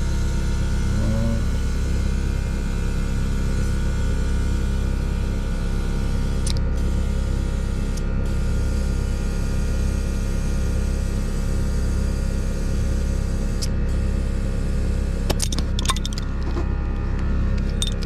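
Air compressor running steadily with a low, slowly pulsing hum while the spare tire is inflated to about 40 psi through an air hose and inflator gauge. A few sharp clicks come late on.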